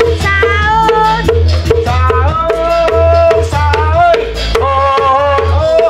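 Music with a sung melody over a heavy bass line and a quick, steady knocking percussion beat.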